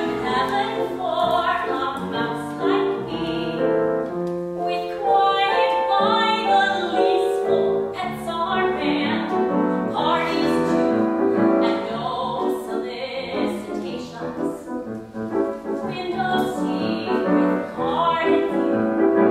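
Soprano singing in phrases with grand piano accompaniment, a classically trained voice in a musical-theatre song.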